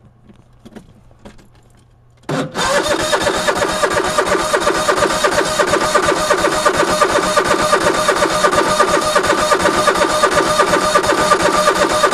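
Key-start engine cranking on its electric starter, switched on about two seconds in: a loud, fast, even chugging that goes on for about ten seconds and stops near the end without the engine catching.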